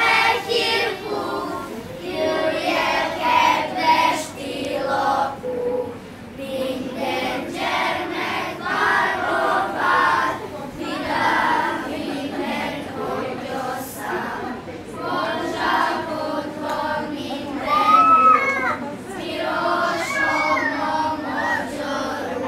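Children's choir singing together, many young voices on a tune.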